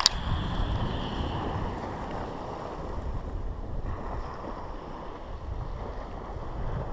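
Wind buffeting the microphone with a steady rumble, over the wash of waves on the shore. A single sharp click at the very start.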